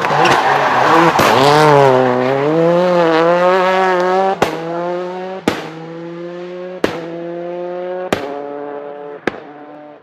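Rally car engine at full throttle with tyre noise, its note wavering up and down, then a steadier engine note. Sharp clicks come about every second, each with a sudden change in loudness, and the sound fades near the end.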